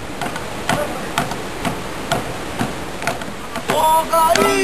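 Sharp struck beats about two a second over a steady rush of creek water, then about three and a half seconds in a group of men starts singing loudly in a traditional chant for the dance.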